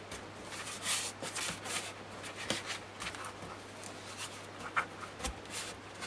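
Heavy brown card being folded along a scored line and rubbed flat by hand, giving short, irregular papery scrapes and rustles.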